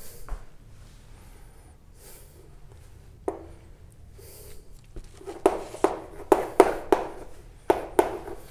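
Writing by hand on a board: faint scratchy strokes, then a quick run of sharp taps about five seconds in.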